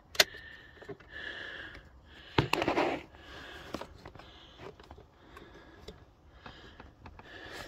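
Plastic support leg of an Isofix car-seat base being extended with its release button held in, lowered two notches. It makes two sharp clicks, about two seconds apart, each with sliding and handling noise, followed by fainter ticks.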